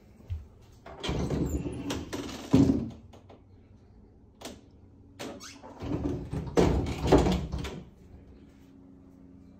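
An interior door being worked open and shut: two bouts of rubbing and knocking, each about two seconds long, with a short single knock between them.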